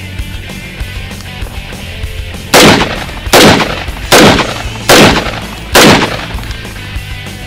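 AR-15 rifle firing five evenly paced semi-automatic shots, about one every 0.8 seconds, starting two and a half seconds in. The shots are very loud and close, as from a camera mounted on the rifle itself. Background music plays underneath.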